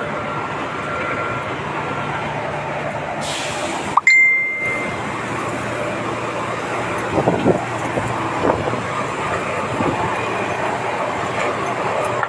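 Concrete batching plant machinery running with a steady mechanical noise during a batch. About four seconds in comes a sudden metallic clink followed by a short ringing tone, and a few knocks follow a few seconds later.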